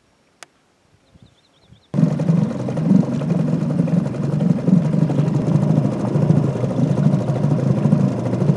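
Near silence with a single sharp click, then about two seconds in an abrupt cut to a boat's outboard motor running steadily under way, with a rushing hiss over it.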